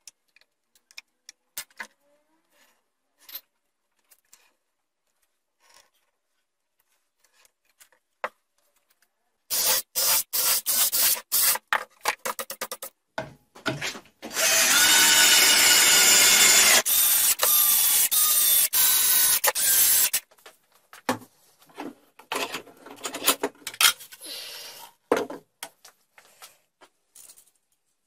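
Power drill-driver driving screws into a chipboard base plate: a run of short trigger bursts, then one long steady run of about six seconds. Quieter clicks and knocks of parts and tools being handled before and after.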